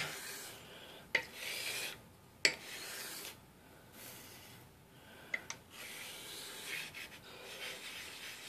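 Dovo straight razor blade being honed on a wet whetstone: several back-and-forth strokes of steel scraping across the stone, with a few sharp clicks between strokes.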